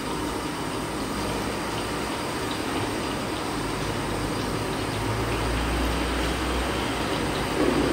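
Chicken pieces deep-frying in hot oil in an iron kadai, a steady sizzle and bubbling over a low steady rumble that swells a little about five seconds in.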